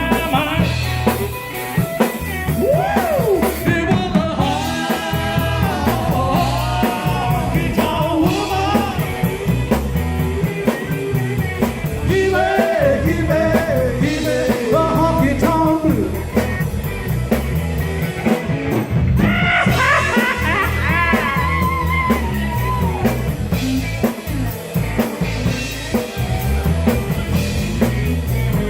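Rock and roll song playing: singing over a steady drum beat with guitar.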